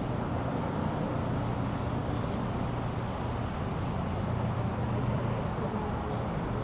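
Steady city traffic noise with a low engine hum underneath.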